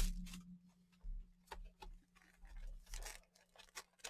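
Trading-card box being handled: scattered faint rustles and light clicks of cardboard and wrapping.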